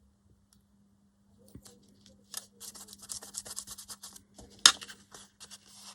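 Scissors cutting paper: quiet at first, then a quick run of snipping and paper rustling from about two seconds in, with one sharp snap near the end.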